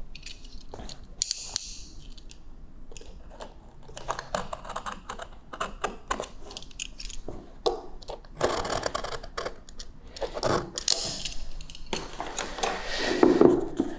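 Fingernails picking at a paper seal sticker on a cardboard box, with small clicks and a few short tearing rustles as the sticker is peeled away.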